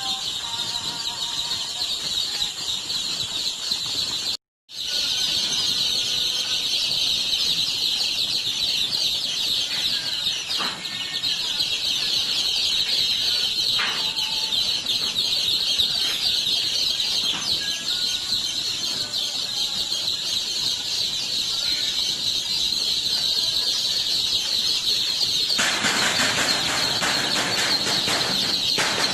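A large flock of newly arrived baby chicks peeping continuously in a dense, high-pitched chorus. There is a brief gap about four seconds in, and a louder rushing noise joins for a few seconds near the end.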